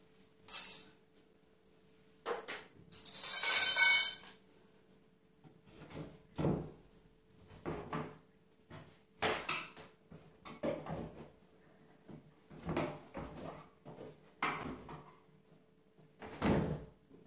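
Hammer striking a particleboard cabinet being knocked apart: irregular wooden knocks roughly once a second, after a louder, second-long clattering noise about three seconds in.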